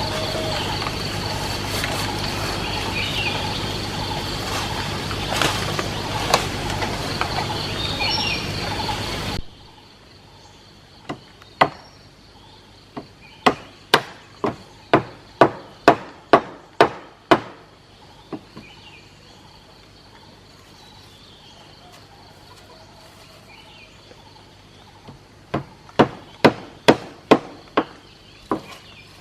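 A steady noise for about nine seconds that cuts off suddenly. Then a hammer striking repeatedly, about two blows a second: a run of around a dozen blows, a pause, and a second run of about seven, with faint birdsong behind.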